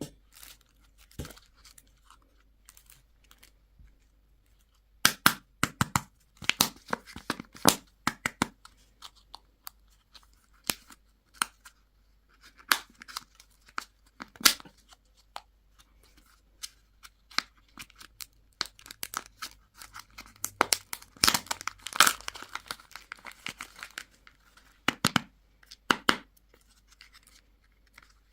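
Candy wrappers being torn open and crinkled by hand: irregular crackling and ripping, busiest about five to eight seconds in and again a little past twenty seconds.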